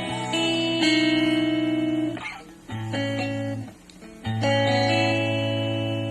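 Guitar played through a VOX Pathfinder 10 amplifier: chords strummed and left ringing, with two short breaks in the middle before the next chord is struck.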